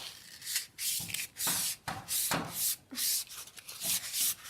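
Fine sandpaper rubbed by hand over aluminium scooter handlebars in quick back-and-forth strokes, about two a second, a rasping hiss.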